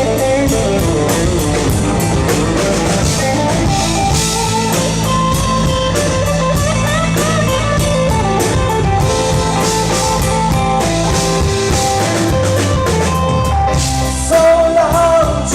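Live band playing a rock song with guitar and drum kit, with a voice coming in loudly with held sung notes near the end.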